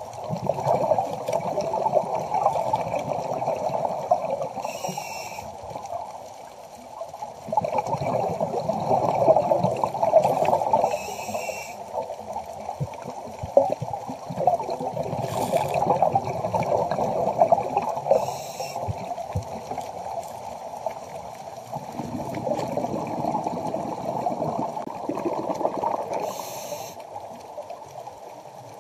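Scuba diving underwater: regulator breathing, with short hissing inhalations every few seconds and long gurgling rushes of exhaled bubbles that swell and fade.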